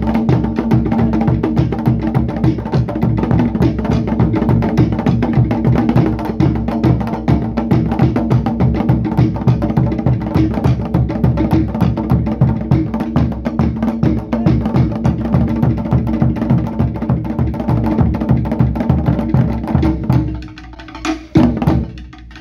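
Fast Polynesian dance drumming: rapid, even wooden strikes over deeper drum beats. It breaks off near the end, and a few scattered hits follow.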